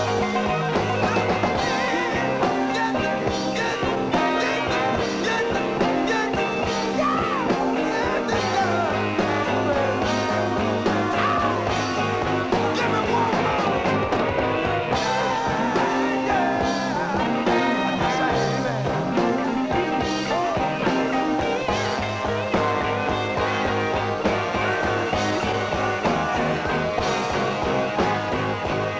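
Rock band playing live in a long instrumental stretch: electric guitar, bass and drums with a horn section, with sliding lead lines over a steady beat.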